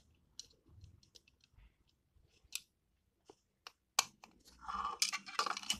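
Small Playmobil plastic pieces clicking and tapping as they are handled and fitted into a toy machine: a scatter of short, sharp clicks, with a brief rustle near the end.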